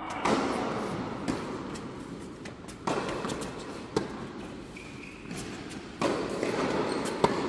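Tennis ball being struck by rackets and bouncing on a hard court during a rally: five or so sharp pops a second or more apart, each with the echo of a large indoor hall.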